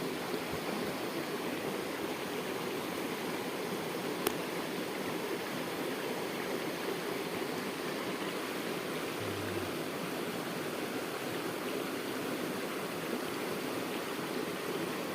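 River water flowing steadily, a constant rushing with no change. A single sharp click about four seconds in.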